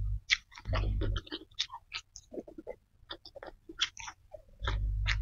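Close-miked wet chewing and mouth smacking of a person eating rice and side dishes, with many short sharp clicks. A few brief low rumbles come at the start, about a second in and near the end.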